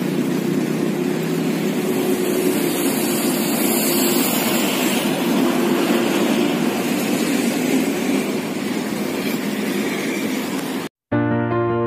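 Steady city road traffic, a constant mix of car engines and tyre noise. It cuts off abruptly about eleven seconds in, and soft background music with piano-like notes starts.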